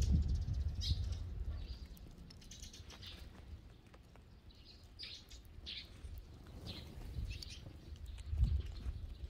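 Eurasian tree sparrows chirping in short, scattered calls. A low rumble fades out over the first couple of seconds, and a brief low swell comes near the end.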